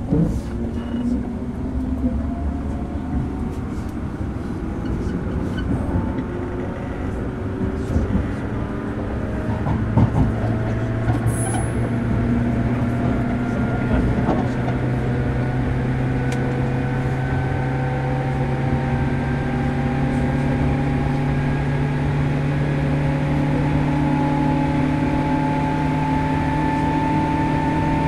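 Onboard sound of a JR Kyushu 103 Series 1500-subseries electric train's motor car under way: the traction motors whine with several tones rising steadily in pitch as the train gathers speed, over running noise from the wheels and rails.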